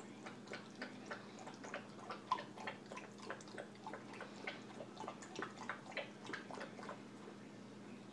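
Quick, irregular light clicks and taps, several a second, as a German Shepherd puppy plays with a hard plastic Jolly Ball, with one sharper knock a little after two seconds in. A faint steady hum runs underneath.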